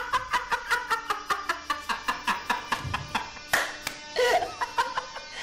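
A man laughing hard and long: a rapid run of short voiced "ha" pulses, about six a second, breaking into a few longer whooping bursts near the end. A steady music bed plays under it.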